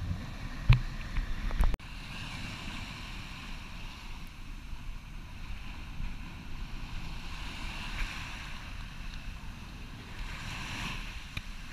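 Small ocean waves washing up and sliding back on a sand beach, a steady wash with wind rumbling on the microphone. In the first two seconds, water sloshes and knocks sharply against the camera at the waterline, then it cuts off suddenly.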